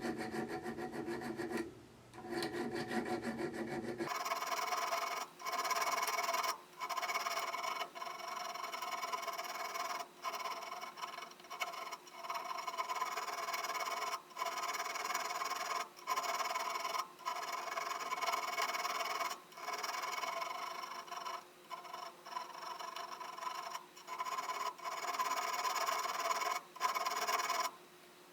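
Coarse diamond barrette file being worked over the steel surface of a wood auger bit, a scraping rasp in repeated strokes of a second or two each with short breaks between them, smoothing the cutting surface before finer sharpening.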